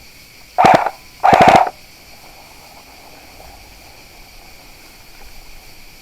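Airsoft rifle firing two short bursts of rapid shots about half a second apart, the second a little longer.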